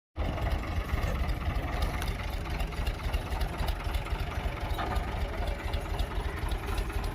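Tractor engine running steadily with a low rumble, driving a wheat thresher, with quick clicking and rattling throughout.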